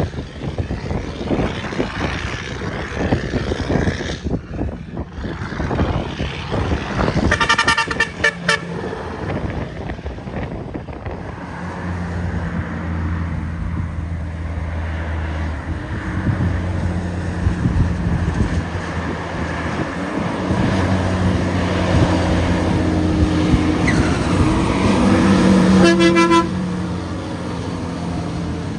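Heavy truck's diesel engine labouring up a steep grade, its steady drone growing louder as it comes closer. A few quick horn toots sound about a quarter of the way in and another short honk near the end, over gusty wind noise in the first part.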